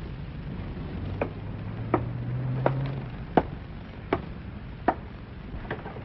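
Footsteps on the rungs of a wooden ladder as a man climbs it: a steady series of sharp knocks, about one every three quarters of a second.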